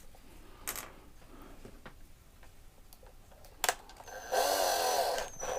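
Small clicks, then a power drill run for about a second, its pitch dipping and rising again.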